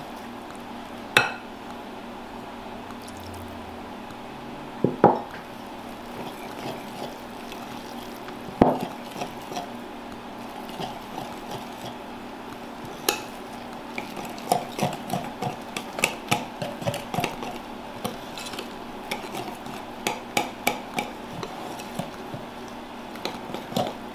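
Wire hand whisk stirring pancake batter in a glass mixing bowl, the wires scraping and clinking against the glass: a few separate knocks in the first half, then quicker, steady strokes in the second half.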